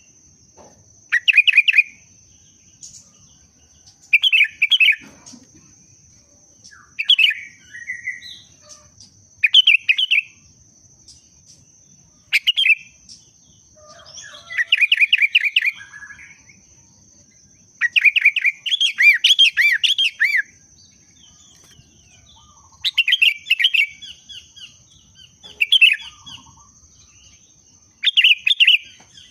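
Sooty-headed bulbul (kutilang) singing short bubbling phrases about every two to three seconds, with one longer burst about two-thirds of the way through. It is the song of a bird in breeding condition, used as a call to stimulate other kutilang to sing.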